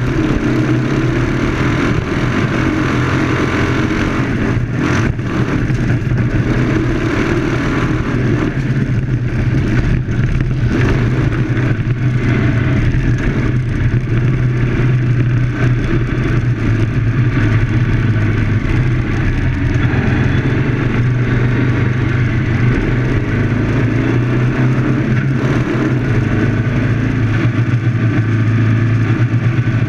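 Citroën 2CV-class autocross car's air-cooled flat-twin engine running hard at high revs on a dirt track, heard from inside the car. It holds a fairly steady drone with brief dips and pickups as the driver lifts and accelerates through the corners.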